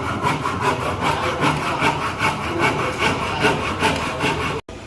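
Hand saw cutting through wood with quick, even back-and-forth strokes, about four to five a second, cutting off abruptly just before the end.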